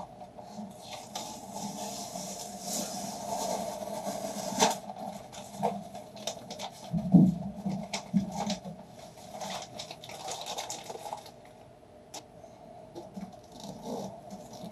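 Rustling and crinkling of a paper-backed foam soundproofing sheet being handled and fitted, with scattered light clicks and knocks. One louder thump comes about seven seconds in.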